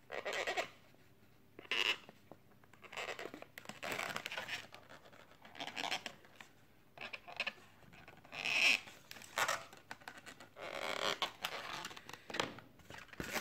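Latex modelling balloons scratching and squeaking as they are handled and a felt-tip marker draws eyes on them, in short irregular bursts.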